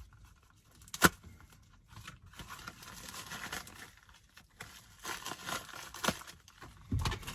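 A parcel being torn open and its packaging rustled and crinkled, with a sharp click about a second in.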